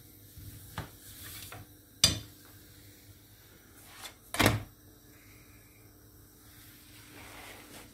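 Kitchen handling knocks: a sharp tap about two seconds in, then a louder clunk about four and a half seconds in as a frying pan is set down on the gas hob's metal grate.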